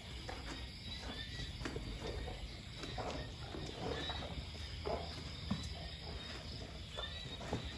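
Asian elephants eating from a plastic tub: soft, irregular knocks and rustles as their trunks pick food out of it. Insects chirp steadily behind.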